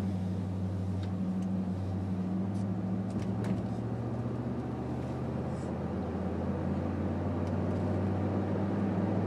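Steady low drone of a vehicle cruising at road speed, heard inside the cabin: engine hum mixed with tyre and road noise.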